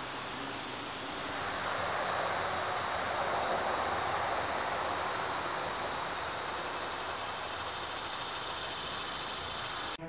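Outdoor ambience: a high, steady insect chorus over a rushing hiss, both getting louder about a second in.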